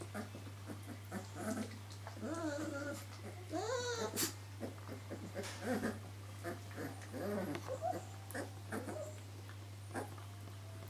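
Greater Swiss Mountain Dog puppies whining and squeaking in short, rising-and-falling cries while they lick and mouth one another's faces, with small clicks and rustles, over a steady low hum.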